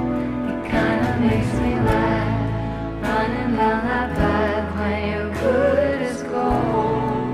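Background music: a pop song with a singing voice over a steady accompaniment.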